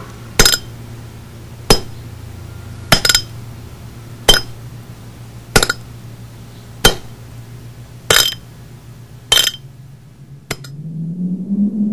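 Sharp, ringing metallic strikes at a slow even pace, nine of them about 1.3 seconds apart, over a steady low hum. Near the end a low droning tone swells in.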